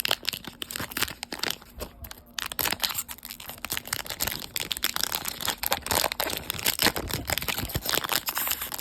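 A trading-card pack wrapper crinkling and tearing as it is opened by hand, a dense, irregular run of crackles and rustles.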